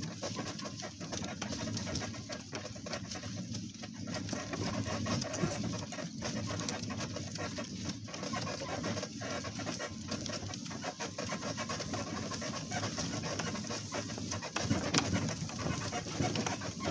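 Steady panting of an animal, heavy rhythmic breathing.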